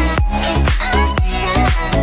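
Background electronic dance music with a steady beat, about two beats a second, under a pitched synth melody.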